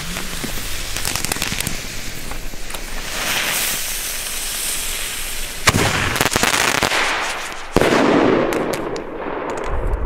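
Pyroland BKS Alpha firework: a steady hiss while the lit fuse burns, then a sharp bang a little past halfway and a second, heavier blast about two seconds later that dies away over a second.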